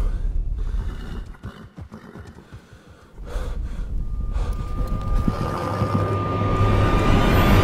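Film sound design: a low rumble dies away almost to quiet, then comes back about three seconds in as a low drone with a thin, steady high tone held above it and a rush of noise swelling toward the end.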